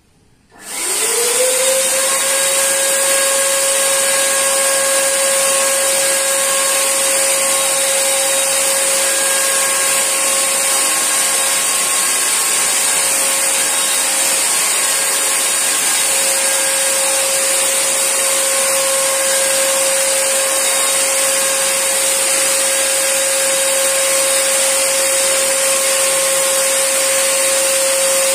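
Nankai portable electric paint sprayer's blower motor starting up under a second in, its whine rising quickly and then holding steady, with a loud hiss of air and paint spraying from the gun.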